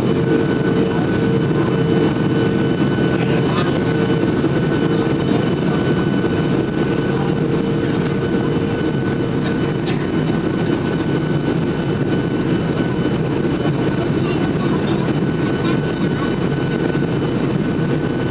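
Steady cabin noise inside a Boeing 737 airliner in flight: a constant rush of jet engine and airflow noise. A low hum in it fades out about four seconds in, and a faint high whine holds steady.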